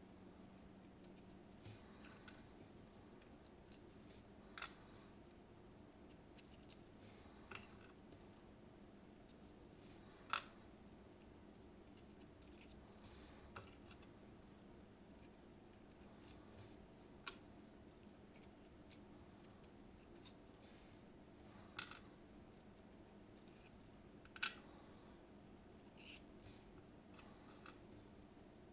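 Small metal parts of a disposed disc detainer lock core being handled: scattered sharp clicks and taps as the discs are taken out one by one. The clicks come irregularly, a few seconds apart, with a few much louder than the rest.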